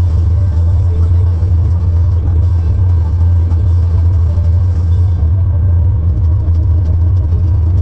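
Tractor engine running with a steady low rumble while baling hay.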